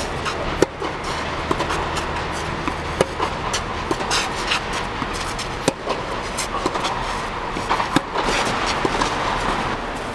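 Tennis rackets striking the ball and the ball bouncing on the court during a rally: sharp pops at irregular spacing, roughly one or two a second, over a steady hum and hiss.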